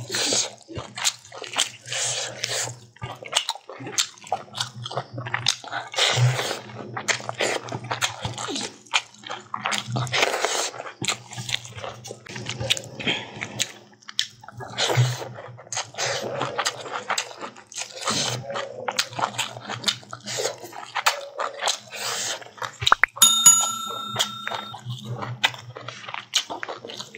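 Close-miked eating sounds: chewing and lip-smacking of rice, chicken and leafy greens, with fingers squishing rice and greens together. A short ringing tone sounds once, about three-quarters of the way through.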